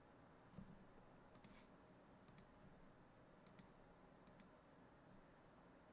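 Faint computer mouse clicks, about four quick press-and-release pairs, over near-silent room tone.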